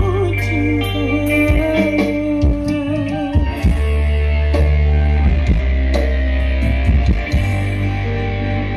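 Loud music with guitar and very heavy bass, played through a sound system being tested.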